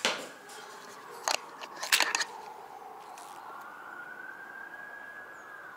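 A distant siren wailing slowly, its pitch rising over a few seconds and then starting to fall. In the first two seconds there are three sharp clicks and knocks from the window being handled.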